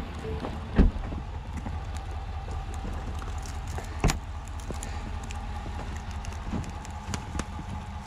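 Footsteps crunching through deep fresh snow, over a steady low rumble. Two sharp knocks stand out, about a second in and about four seconds in.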